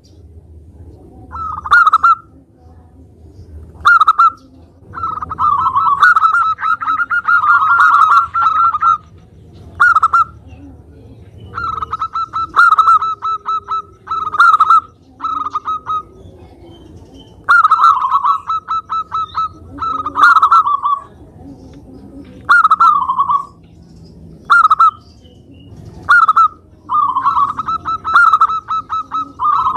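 Zebra dove (perkutut) calling over and over in its rapid staccato cooing. Short phrases alternate with longer runs of quick pulsed notes lasting a few seconds each, with pauses between them.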